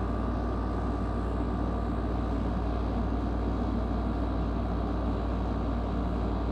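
Steady low rumble of road and engine noise heard from inside a moving car, even throughout with no distinct strikes or changes.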